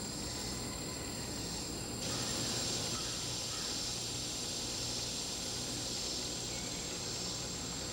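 Steady chorus of insects trilling high and continuously, growing louder about two seconds in as more of them join.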